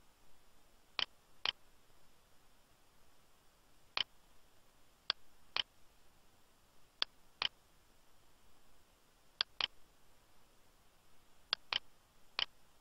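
Computer mouse button clicks: about a dozen short, sharp clicks at irregular intervals, several coming in quick pairs.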